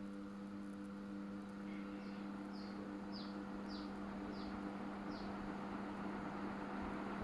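KDK ceiling fan motor humming steadily at low supply voltage, a low electrical hum. Six short, high, falling chirps sound over it about two to five seconds in.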